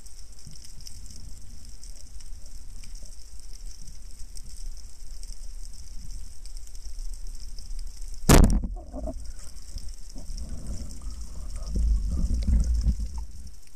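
A band-powered speargun firing underwater about eight seconds in: one sharp, loud crack. Afterwards a low rumbling of water with a few knocks, over a steady underwater hiss.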